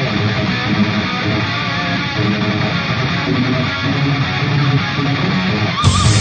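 Hard rock instrumental music with strummed electric guitars, shifting to a brighter, louder passage near the end.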